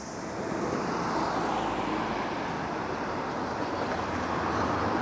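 Hiroshima tram, car 653, running past on street track: a steady rolling noise mixed with road traffic, fading in at the start.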